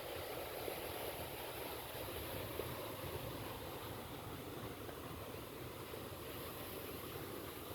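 Steady wash of sea surf on a beach, mixed with wind noise on the microphone.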